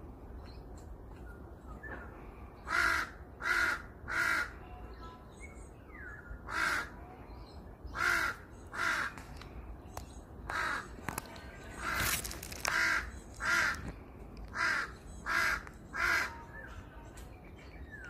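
A crow cawing: over a dozen harsh caws, mostly in quick runs of two or three about a second apart, starting about three seconds in.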